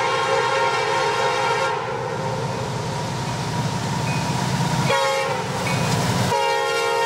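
Air horn on a CSX freight train's lead diesel locomotive (SD70AC 4799) sounding as the train approaches: a long chord that stops about a second and a half in, a short blast near five seconds, and another long blast starting about six seconds in. Between blasts, the locomotives' diesel engines rumble under power as the train builds back up to track speed.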